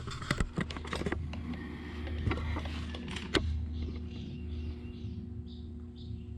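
Hand tools clicking and tapping against metal as a chain guard bolt on an electric dirt bike is worked with an Allen wrench. A short high chirp then repeats about twice a second, over a low steady hum.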